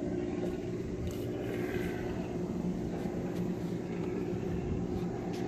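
A steady mechanical hum from a running engine or motor, an even drone with a constant low pitch, with a few faint clicks over it.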